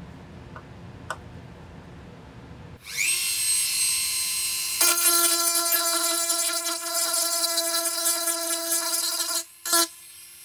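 A small handheld power tool's electric motor spins up about three seconds in and runs with a steady high-pitched whine. It stops shortly before the end, with one brief final burst.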